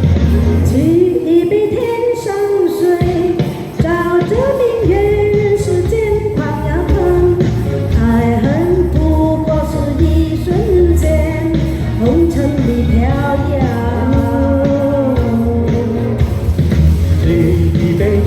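A song: a voice singing a melody over pop-rock band backing.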